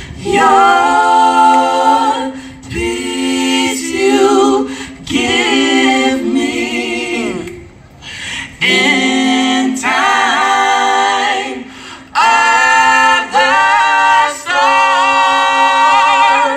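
A cappella vocal group of mixed male and female voices singing in harmony into microphones, in held phrases with short breaks between them.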